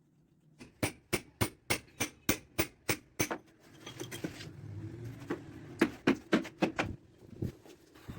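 Hammer striking hard material in a quick, even run of about nine blows, roughly three a second. A short scraping, rustling stretch follows, then a second, less regular run of blows.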